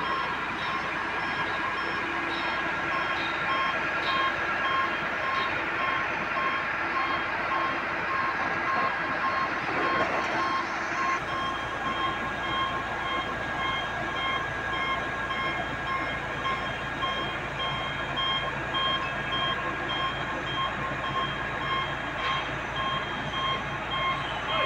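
XCMG XLC250 crawler crane's warning beeper sounding in fast, evenly repeating beeps as the crane works and slews, over the steady running of its diesel engine and hydraulics. The machine's low note shifts about eleven seconds in.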